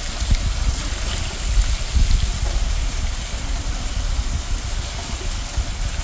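Monsoon rain falling on a road covered with running rainwater: a steady hiss of rain and flowing water, with a low, uneven rumble underneath.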